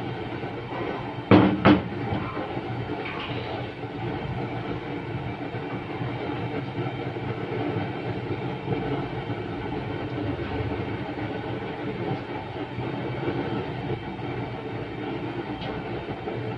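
Gas burner flame under an empty cast-iron sizzling plate, making a steady rush of noise as the plate is preheated. About a second in come two sharp knocks, a wooden sizzling-plate board set down on a stainless-steel counter.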